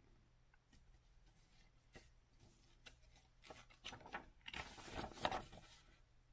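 Faint handling of paper, then a page of a small paper booklet is turned by hand, rustling for about two seconds, loudest a little past five seconds in.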